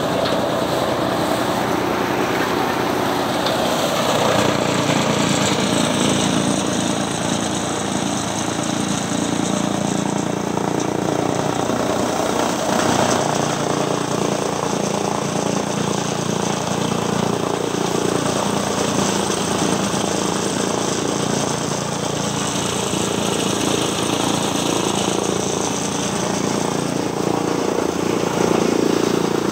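Chaff cutter running steadily, chopping green maize stalks into silage and blowing the chopped fodder out through its delivery pipe, over the steady drone of the engine that drives it.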